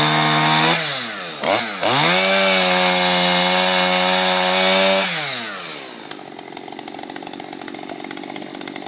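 Two-stroke gas chainsaw revved to full throttle. It eases off and dips in pitch about a second in, is throttled up again and held high for about three seconds, then falls back to a low idle.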